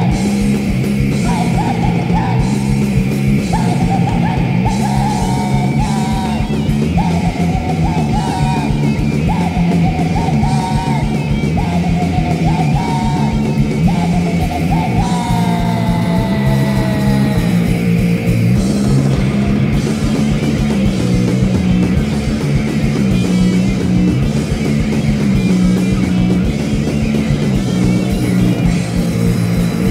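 Punk band playing a song live, with electric guitar, drums and yelled vocals over a repeating riff.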